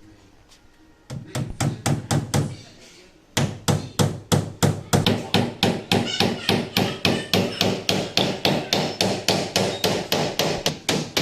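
Hammer striking wood in quick, even blows, about four to five a second. A short burst comes first, then after a brief pause a long steady run of hammering.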